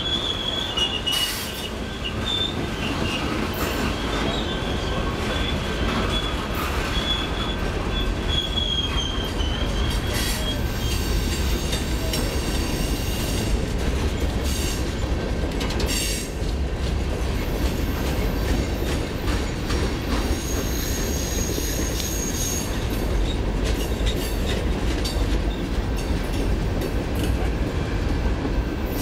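Freight cars rolling past with a steady rumble and irregular clacks of wheels over rail joints. Wheel squeal rings in a high, wavering tone through the first third, and a thinner, higher squeal sounds briefly about two-thirds of the way in.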